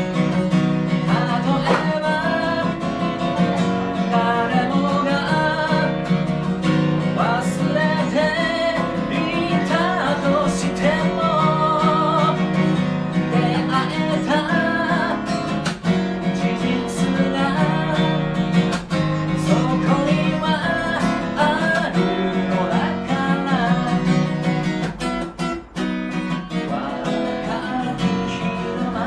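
A man singing in Japanese while strumming an acoustic guitar.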